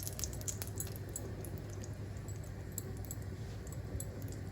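Faint, irregular light clicks and ticks from a kadhai as a spoonful of desi ghee goes in to melt, over a steady low hum. The clicks are thickest in the first second and thin out after.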